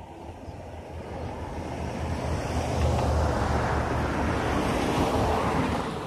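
A car passing by on a road: an even hiss of tyres and engine that swells over about three seconds, holds, then fades near the end.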